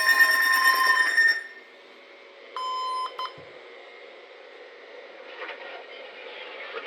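NOAA Weather Radio alert tones on a weather radio receiver: a long steady alarm tone with a higher, rapidly pulsing beep over it, both cutting off about a second in. Then faint radio hiss, broken by one short beep a little under a second long.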